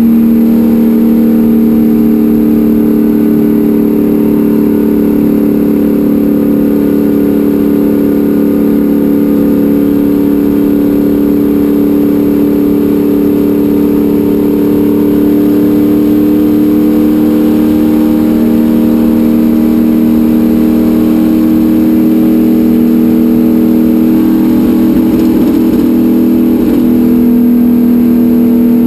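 Racecar engine running hard at high revs, heard from inside the cockpit. The note holds steady and creeps slowly up in pitch, then shifts near the end.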